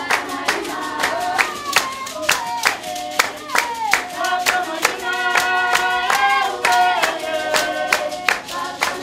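Basarwa (San) dance song: a group of voices singing together over steady hand-clapping, about two claps a second.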